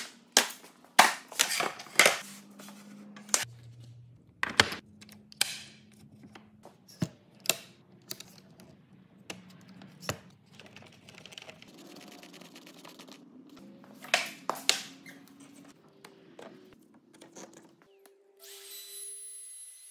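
Sharp clicks and knocks of plastic and metal as a Festool OF 1400 router and its guide-rail adapter are handled, adjusted and set onto an aluminium guide rail. Near the end a motor starts and runs with a steady high whine.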